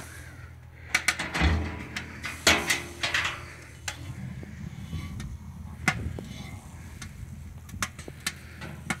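Metal clanks and clinks from handling a welded steel smoker's door and its chain latch: a cluster of sharp knocks a second or so in, then scattered clicks as the door is worked open.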